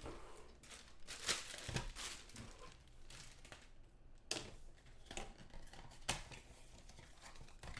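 Packaging crinkling and tearing as an item is unwrapped by hand, in irregular rustles with a few sharper crackles.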